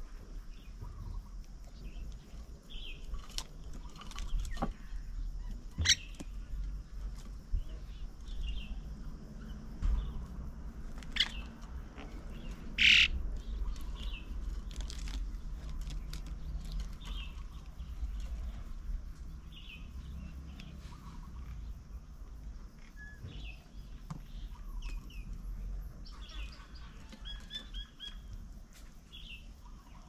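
Birds calling around a garden bird table: many short, scattered chirps with a few sharper, louder calls, the loudest about halfway through, over a steady low rumble.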